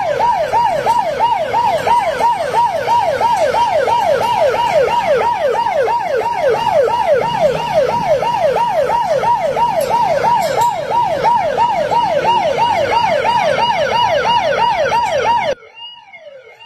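Electronic siren sounding a rapid falling yelp, about three sweeps a second. It cuts off suddenly near the end.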